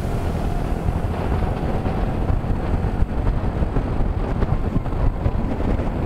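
Motorcycle on the move at road speed: steady wind buffeting on the microphone over the rumble of the engine and tyres.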